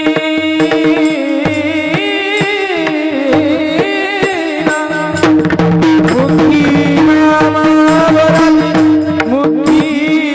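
Male voice singing a Marathi Varkari kirtan melody, with a steady drone, hand-drum beats and, from about halfway through, sharp cymbal strokes.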